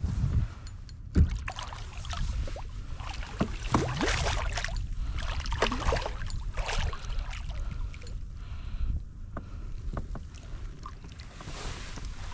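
Irregular water splashing and knocks against a kayak, with a sharp knock about a second in.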